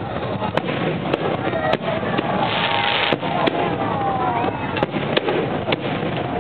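Fireworks display: about eight sharp bangs of shells bursting at irregular intervals. A hissing crackle comes about halfway through, over the chatter of a crowd.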